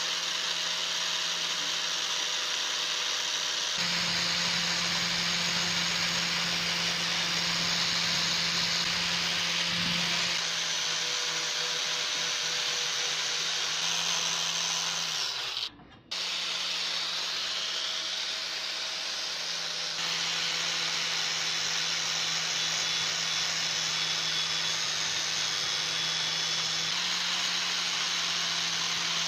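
Angle grinder running steadily, its abrasive disc grinding the steel blade of a hand pruner and throwing sparks, with a brief break about halfway through.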